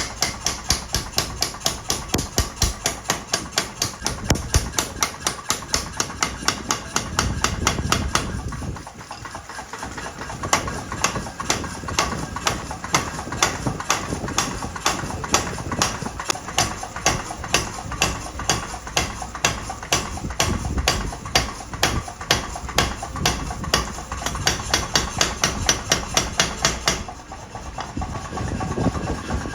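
Steel being forged into a sickle with rapid, evenly spaced hammer strikes, about four a second, pausing briefly twice.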